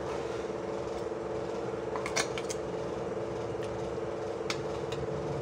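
A steep steel serving spoon clinking and scraping against an aluminium cooking pot while ladling out chicken-and-potato gravy, a few light clinks about two seconds in and one more near the end. Under it a steady mechanical hum, like a fan, runs throughout.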